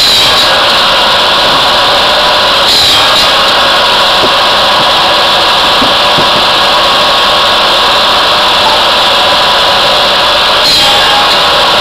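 Posch sawbench and log splitter running off a Kubota B2110 tractor's PTO: a steady, loud mechanical din, with brief louder surges about three seconds in and near the end as wood is fed into the machine.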